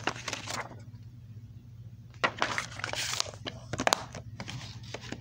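Plastic DVD case being handled, opened and shut: clusters of clicks and rustles at the start and again from about two to four seconds in, over a faint steady low hum.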